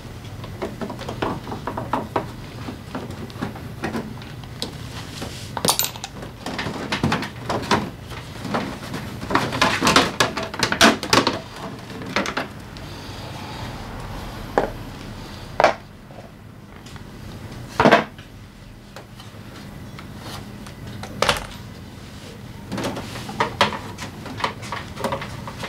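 Hand tools clicking and clinking against metal parts at a scooter's front wheel and fork, in irregular runs of small taps with a few sharper knocks. A low steady hum sits underneath.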